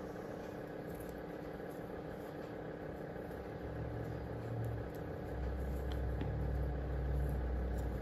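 Steady mechanical hum made of several even tones, joined about halfway through by a deeper low rumble.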